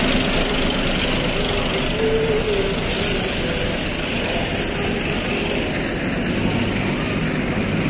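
Diesel bus engines idling steadily, with a brief hiss about three seconds in.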